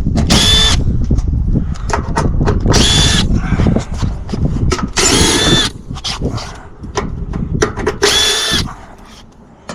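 Cordless drill driving screws on the unit's sheet-metal access panel: four short bursts of motor whine about two to three seconds apart, with small clicks and knocks of metal handling between them.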